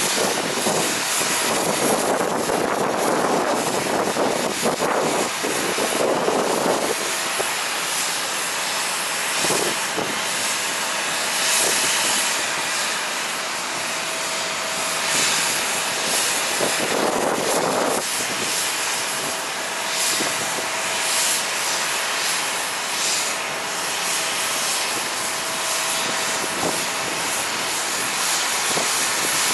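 Jet airliner engines running across the airfield, a steady rushing noise that is louder for the first several seconds and again briefly mid-way, with a faint steady whine underneath from about seven seconds in.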